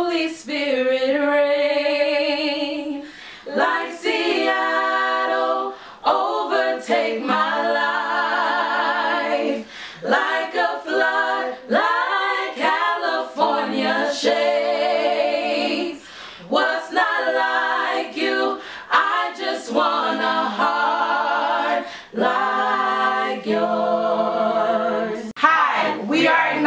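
A small vocal group of four women and a man singing a cappella in harmony, in phrases of held notes with vibrato and short breaks between them.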